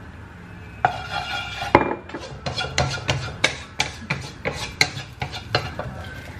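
Wooden spatula scraping and knocking against a non-stick wok, stirring a little oil. It goes in quick repeated strokes that start about a second in.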